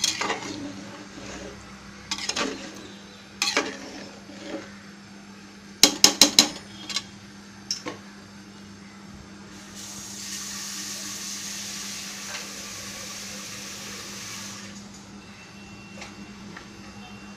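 A metal spoon scraping and knocking against a pressure-cooker pot while water is stirred into a chicken masala gravy. The knocks are loudest in a quick cluster of three or four about six seconds in. Later a steady hiss runs for about five seconds.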